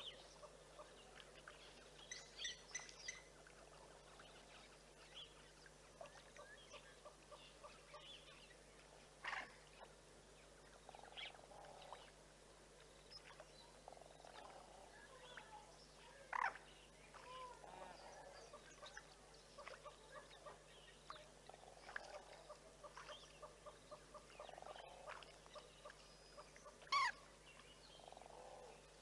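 Faint wild bird calls and chirps, many short scattered notes, with a few louder sharp calls now and then.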